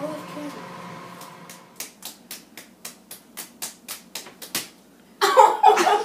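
Microwave oven running with a steady hum, then a run of about ten sharp snaps or claps, about three a second. Loud shouting voices break in near the end.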